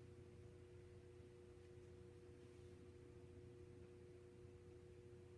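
Near silence: room tone with a faint, steady two-note hum.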